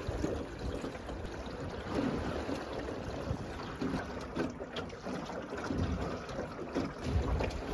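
Wind buffeting the microphone in uneven gusts, over water lapping and trickling.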